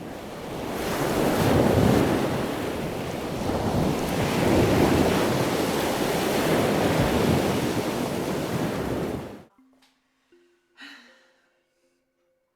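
Rushing noise of ocean waves washing in, swelling twice, then cutting off suddenly about nine seconds in.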